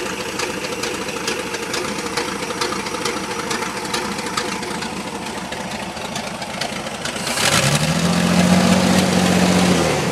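1968 GMC C20's GMC V6 petrol engine idling with a quick, even ticking. About seven seconds in it revs up, holds a steady higher hum for a couple of seconds, then drops back toward idle near the end.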